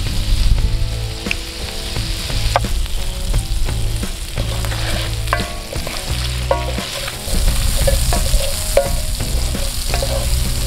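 Potato chunks sizzling in hot fat in a cast iron skillet, with a wooden spoon stirring them and clicking against the pan now and then.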